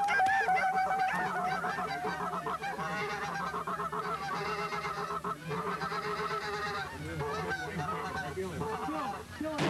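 Geese honking, many calls overlapping in a continuous chorus that briefly thins twice.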